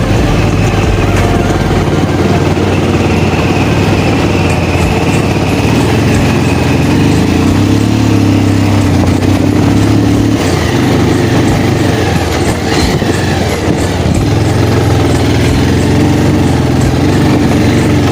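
Motorcycle engine running steadily while being ridden, its pitch rising and falling slightly, over a continuous broad rumble.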